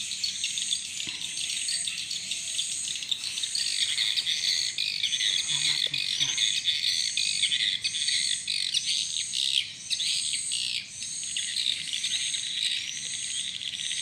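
Outdoor chorus of insects and crickets: a steady high buzzing, with short high chirps repeating about once a second and bird calls mixed in.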